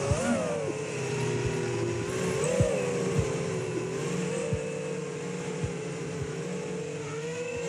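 Motors and props of a 5-inch FPV racing quadcopter whining, heard through its onboard microphone. The quad has Lumenier RX2206 2350Kv brushless motors on 4S with Gemfan 5x4 triblade props. The steady pitched drone dips and rises a little with throttle and falls slightly near the end, with occasional low thumps.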